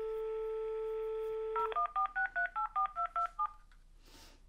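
Cordless landline phone: a steady dial tone from the handset, then a quick run of about ten touch-tone keypad beeps as a phone number is dialled, ending about three and a half seconds in.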